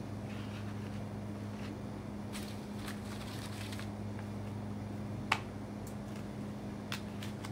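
A steady low hum, with a few light clicks and rustles of leaves being handled and trimmed, the sharpest click a little after five seconds in.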